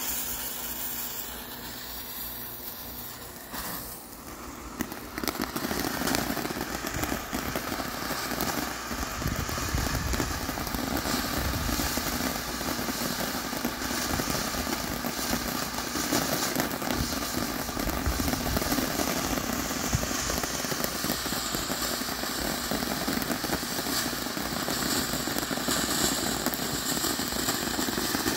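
A lit fuse hisses for a few seconds, then a Black Cat Peach Tree ground fountain firework erupts about five seconds in, spraying with a steady hiss and crackle that keeps going for more than twenty seconds.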